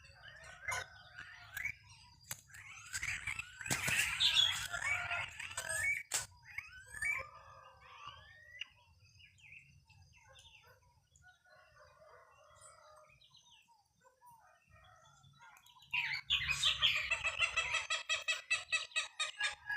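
Wild birds singing and chirping, many overlapping calls at first, thinning to scattered chirps midway, then a loud, fast-repeating song near the end.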